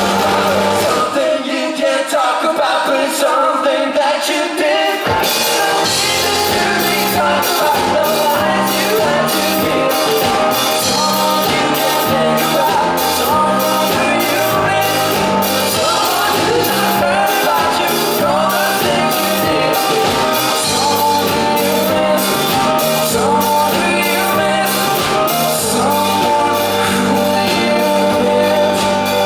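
Pop-rock band playing live with sung vocals. The drums and bass drop out about a second in, leaving the voice and melodic instruments, and the full band comes back in with a steady beat about five seconds in.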